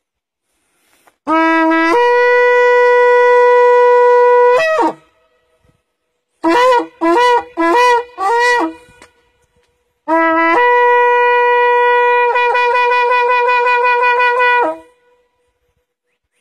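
A long spiral shofar blown in a sequence: one long blast, four short blasts, then another long blast that wavers in its second half. Each blast opens on a lower note before jumping up to the held note, and the long blasts sag in pitch as they end.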